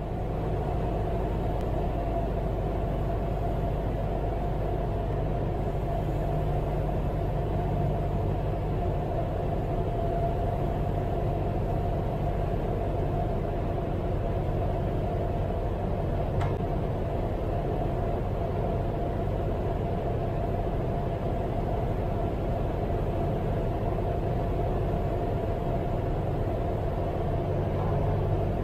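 Cessna 172's four-cylinder piston engine running steadily, heard from inside the cockpit as a constant low drone with a steady hum above it. A single brief click about sixteen seconds in.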